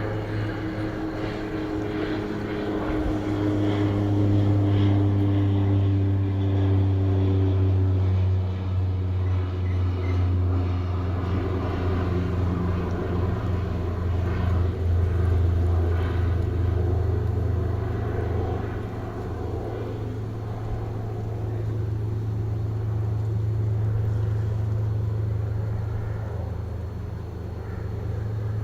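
A low engine drone, steady and continuous, its pitch falling slightly over the first several seconds as it passes, swelling louder about four seconds in and easing near the end.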